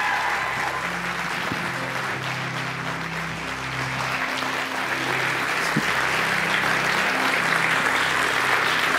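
Congregation applauding over soft instrumental music with held low notes.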